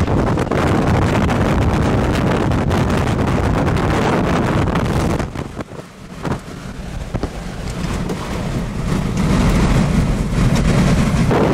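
Strong tornado winds buffeting the microphone in a dense, steady rush. The rush dips to a quieter stretch about halfway through, then builds back up near the end.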